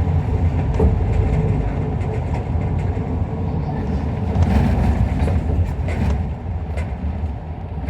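Inside an Isuzu Erga Mio diesel bus under way: a steady low engine and road rumble with scattered rattling clicks from the cabin. The rumble eases off after about six seconds as the bus slows for a stop.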